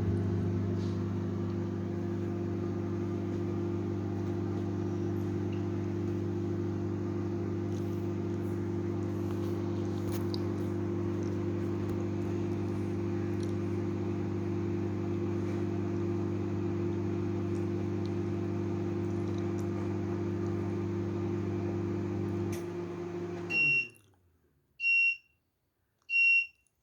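Microwave oven running a heating cycle with a steady hum. The hum cuts off about 23 seconds in, and the oven beeps three times, high-pitched, to signal the end of the cycle.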